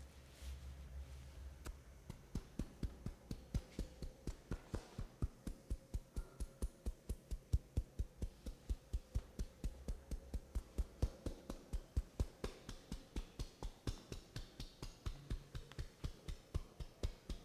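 Percussive hand massage: hands tapping a person's body in an even rhythm, dull soft thuds at about three a second.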